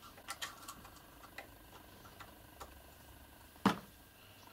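Light metallic clicks and ticks of a thin steel pick working on the cap of a Stirling 14P rifle bolt held in a vise: several small clicks in the first second or so, a few scattered later, and one much sharper click about three and a half seconds in.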